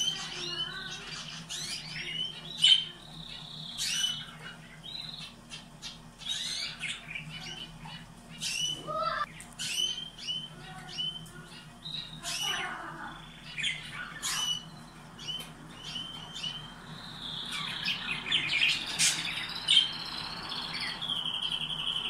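Domestic canaries calling with short, sharp chirps and squawks, then breaking into denser song about three quarters of the way through, ending in a fast trill.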